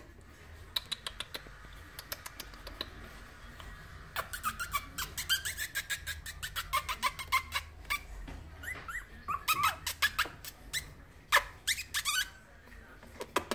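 Three-week-old Bichon Frise puppies squeaking, with many short high calls that begin about four seconds in and come thick and fast through the rest.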